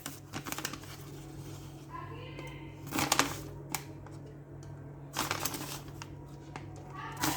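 A spoon scooping custard powder and tipping it into a saucepan of milk: scraping and rustling, about twice loudly, with a few light clicks of the spoon over a low steady hum.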